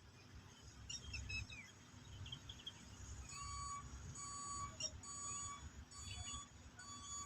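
A short, high, steady beep repeated about once every second, starting about three seconds in, after a few brief chirps.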